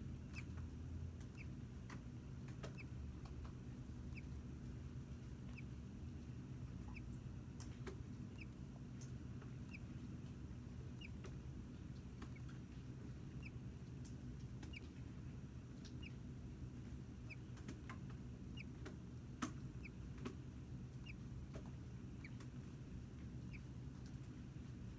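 Short high chirps from a small animal, repeating about once a second over a faint steady hum, with a few sharp clicks, one louder than the rest about three-quarters of the way through.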